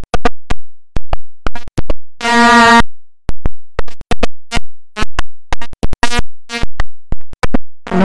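Music: a quick, irregular run of sharp percussive hits, with one short synthesizer-like pitched tone about two seconds in.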